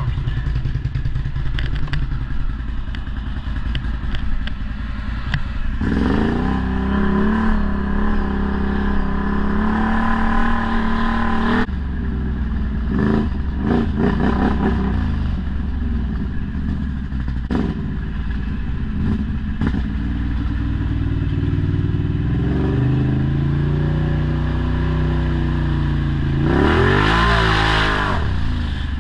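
ATV engine running, its pitch rising and falling with the throttle, with a sharp rev about six seconds in and another rise and fall near the end. Scattered knocks and clatter are heard over it.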